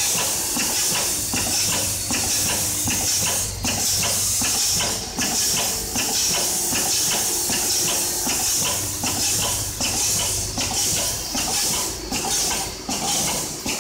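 Hardware-parts counting and packing machine running: vibratory bowl feeders buzz with the dense rattle of screws over a steady hiss, with frequent irregular clicks and clatters from the feed chutes and pneumatic cylinders, and a low hum that comes and goes.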